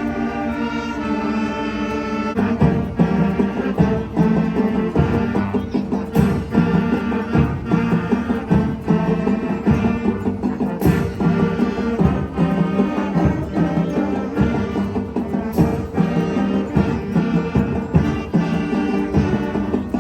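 Elementary school wind band playing: a held chord, then about two seconds in a steady beat on drums comes in under sustained wind and brass parts, with a few cymbal-like crashes.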